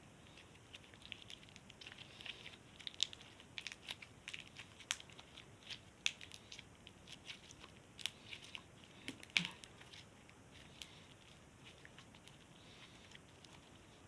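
Crunchy slime being squeezed and worked in the hands, giving faint, irregular crackles and pops. The crackling is densest through the middle and thins out near the end.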